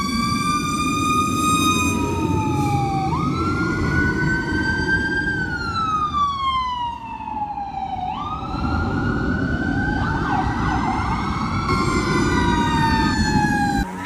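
Emergency vehicle sirens wailing: pitches fall slowly, then sweep quickly back up about three and eight seconds in, and a second siren overlaps the first later on. A steady low road rumble runs underneath.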